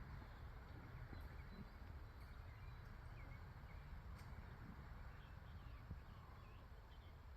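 Quiet outdoor ambience: a steady low rumble with a few faint, brief bird chirps.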